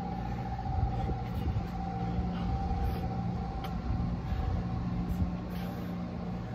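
Steady machine hum: a low drone and a fainter higher whine over a low rumble, with a few soft knocks.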